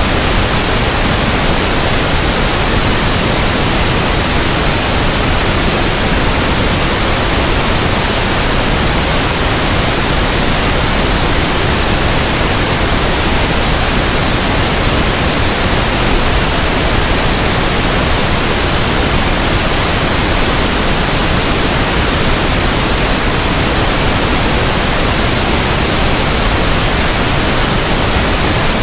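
Pink noise: a steady, even hiss spread across the whole range of pitch, with no changes.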